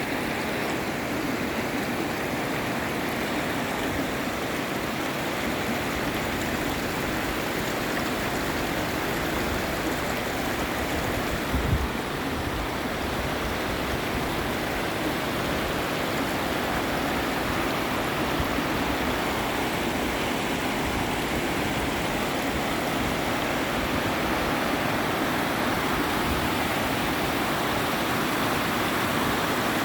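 River water rushing steadily in a continuous, even roar of flowing current, with one brief low thump about twelve seconds in.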